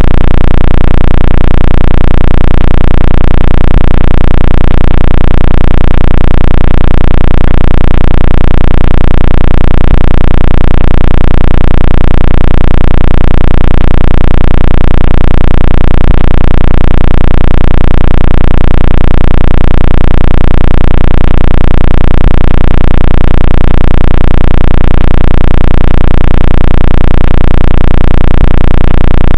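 Artificially generated speaker water-ejection sound at full volume: a steady, loud low drone with a regular pulsing in the bass that does not change.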